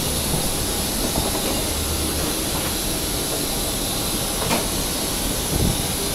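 Steady rushing hiss of an airliner's cabin ventilation with a low rumble underneath, and a single sharp click about four and a half seconds in.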